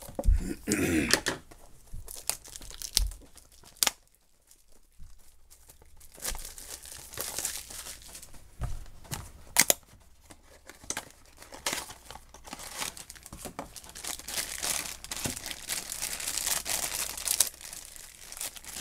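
A cardboard blind box being torn open and a crinkly wrapper from inside it being handled and torn. There are scattered sharp snaps, the loudest about 4 and 10 seconds in, and the rustling grows denser in the last few seconds.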